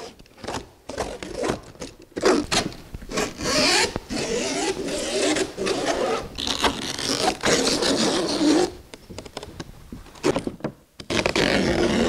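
Utility knife slicing through the old nylon skin along the deck of a skin-on-frame kayak: a few short strokes, then one long continuous rip of several seconds, a pause, and more cutting near the end.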